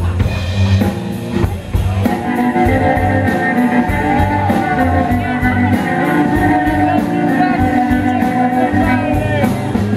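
Live cello-rock band playing: a microphone-amplified cello bowed over a drum kit, with a steady beat on the cymbals at about three to four strikes a second. The band fills out with sustained notes about two seconds in.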